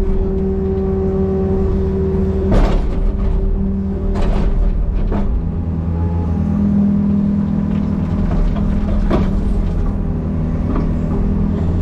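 Excavator's diesel engine running steadily under working load, its pitch shifting about six seconds in, with a few sharp knocks.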